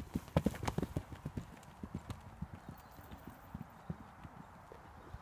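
Horse's hooves thudding on a sand arena as it canters over a jump and lands, a quick run of heavy hoofbeats in the first second, then quieter, sparser hoofbeats.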